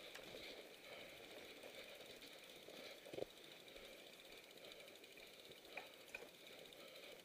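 Faint ticking and rattling of a mountain bike being pushed on foot through snow, with a sharp knock about three seconds in and a couple of small clicks near the end.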